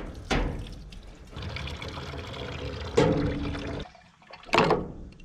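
Tap water running and splashing while dishes are washed, louder about three seconds in, with a short clatter near the end.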